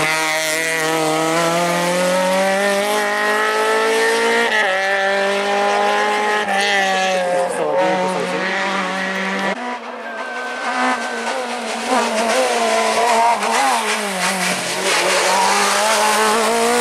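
Peugeot 205 rally car's engine accelerating hard past and away, revs climbing with a gear change about four and a half seconds in and another about two seconds later. About halfway through it gives way to a second rally car's engine, its revs rising and falling through a corner and climbing again near the end.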